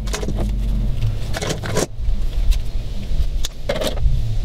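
Heavy battery cable and hand tools being handled: short clinks and knocks of metal and cable against the deck, over a low steady hum.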